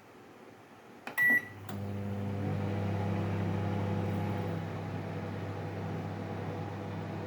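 Microwave oven started: a click and a short high beep about a second in, then the oven starts running with a steady low hum while it cooks the dish.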